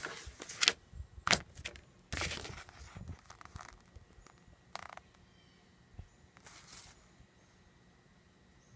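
Folded paper quick start guide being opened out and handled: a run of short paper rustles and crackles, thickest in the first few seconds, with a couple more later.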